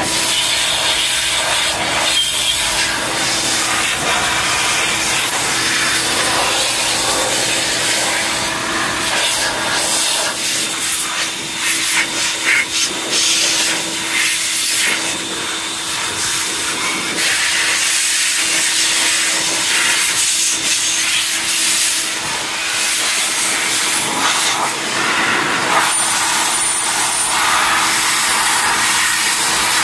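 Corded electric leaf blower running steadily, its motor whining under a loud rush of air through the long nozzle as it blows into a pickup's engine bay. The rush wavers a little as the nozzle is moved around, dipping briefly about halfway through.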